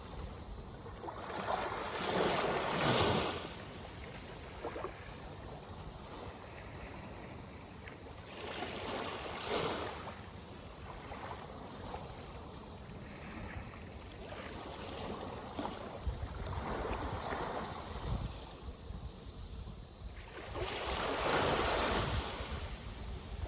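Small waves breaking and washing up the shore, four times: the biggest wash-ins come a couple of seconds in and near the end, with smaller ones near the middle.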